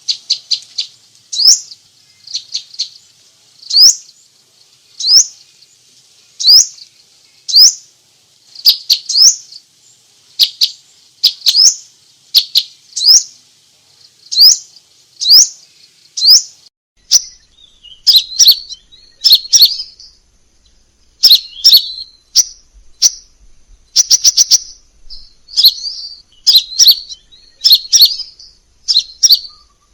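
Crimson sunbird calling: a run of sharp, high single notes, roughly one a second, that changes about halfway through to a quicker, more varied twittering with rapid ticking runs.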